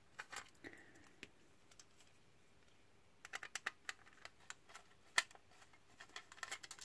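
A small screwdriver working out the tiny screws that hold a circuit board in a plastic instrument case: faint, scattered clicks and ticks of metal on metal and plastic. The clicks come in small clusters, with the sharpest single click just after five seconds in.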